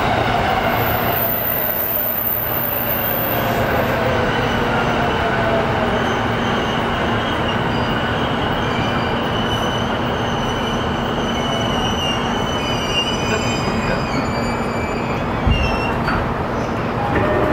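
Keihin-Tohoku Line E233 series electric train running: a motor whine falls in pitch over the first few seconds as the train slows, over steady running noise and a low hum. High wheel squeal comes in about halfway through, with a single thump near the end.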